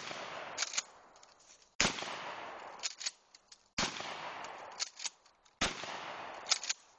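Pump-action 12-gauge shotgun fired three times, about two seconds apart, each blast followed by a decaying echo. Between the shots come short double clacks as the pump is worked to chamber the next shell.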